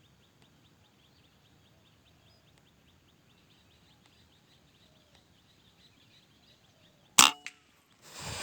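A single shot from a suppressed .177 PCP air rifle (a local FX Crown copy) about seven seconds in: one sharp crack with a small click just after, then a short rushing noise about a second later. Before the shot there is only a faint, rapid, high ticking over quiet background.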